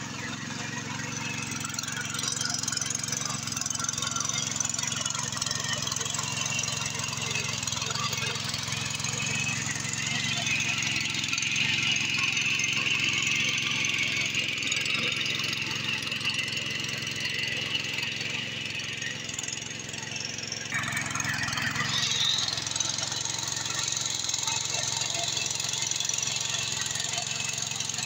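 Power weeder's small single-cylinder engine running steadily under load as it tills a flooded paddy field. A higher whine rises over the engine for several seconds in the middle, and the sound changes abruptly about three quarters of the way through.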